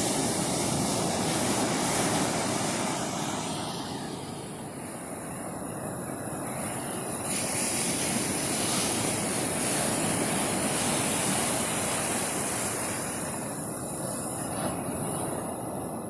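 Pacific Ocean surf: waves breaking and washing up over the sand around rocks, a steady rushing that swells and eases twice.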